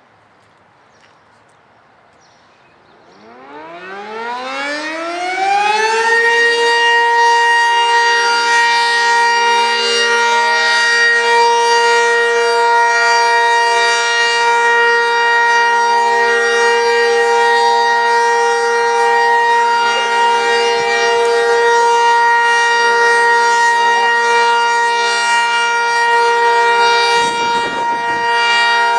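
Outdoor tornado warning siren winding up: several tones rise together from a near-quiet start about three seconds in and settle by about six seconds into a loud, steady multi-tone wail that holds on.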